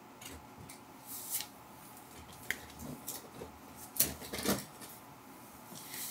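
Brown paper bag crinkling and rustling in short irregular crackles as a cat shifts inside it, the loudest about four seconds in.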